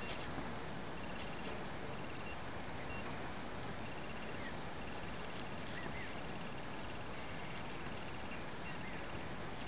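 Steady outdoor background noise, with a few faint, short bird chirps in the middle.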